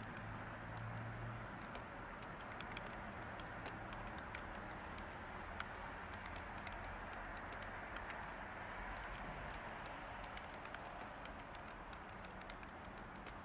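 Light, irregular computer keyboard keystrokes, scattered clicks over a steady background hiss of white noise.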